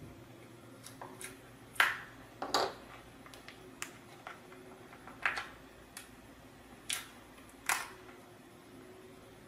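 Small laser-cut acrylic parts being pressed out of their sheet by hand: a handful of sharp snaps and clicks, the loudest about two seconds in, with fainter ticks between.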